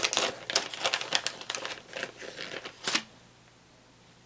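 Plastic bait bag being handled and opened, a quick run of crinkles and crackles that stops about three seconds in, leaving quiet room tone.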